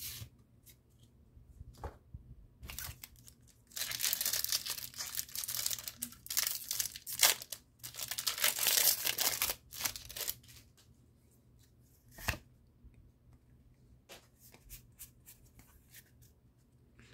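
A Pokémon TCG booster pack's foil wrapper being torn open and crinkled: a long run of ripping and crackling from about four to ten seconds in, among lighter handling clicks. A single sharp click comes about twelve seconds in.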